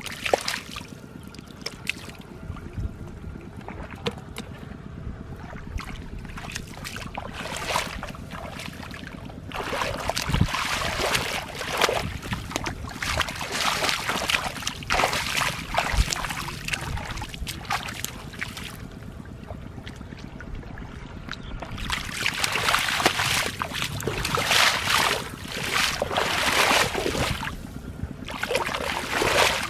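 Shallow muddy water splashing and sloshing as hands grope through it and bare feet wade, in irregular bursts that come thick and fast in two long stretches, from about a third of the way in and again near the end.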